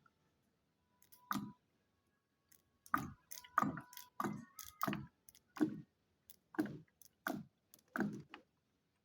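Ink bottle glugging as black ink drains from it into the printer's ink tank: a regular run of short gurgling clicks about every two-thirds of a second, as air bubbles up into the bottle.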